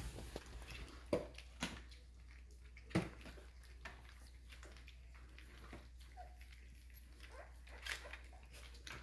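American bully puppies eating soaked puppy food from a shared dish: scattered wet smacks, clicks and knocks. The sharpest knocks come about a second and about three seconds in.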